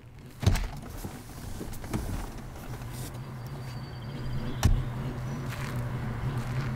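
Car engine running low and steady as a car pulls in, with a thump about half a second in and a sharp click a little past the middle.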